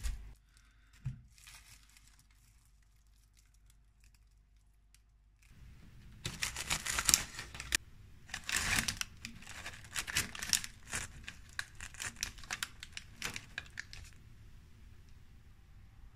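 Paper crinkling and rustling in rapid bursts for about eight seconds, after a couple of light knocks and a few quiet seconds; it is the sound of a food basket's paper liner being handled.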